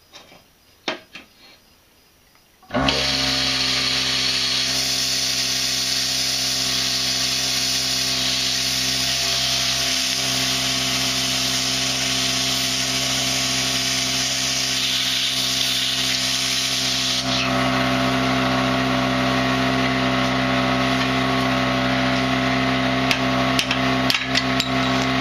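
Plasma cutter cutting into the inside edge of a lawnmower pulley: the arc starts suddenly about three seconds in and runs loud and steady, a hiss over a steady electrical hum. A few sharp taps near the end.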